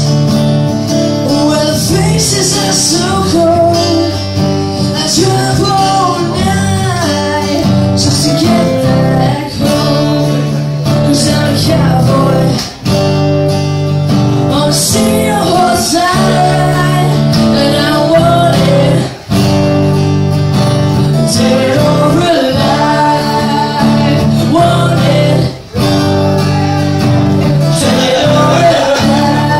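Acoustic guitar strummed in steady chords under live singing through microphones, with brief breaks in the strumming every six or seven seconds.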